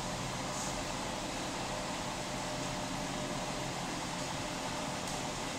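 Steady mechanical hum and whir of running machinery, with a faint steady tone and no change in level.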